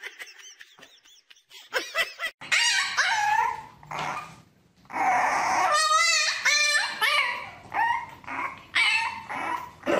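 A French bulldog puppy whining and yelping, a string of high, wavering cries starting a couple of seconds in.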